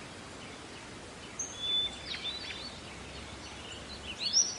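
Small birds chirping: a few short, high calls about a second and a half in and a quicker run of them near the end, over steady outdoor background noise.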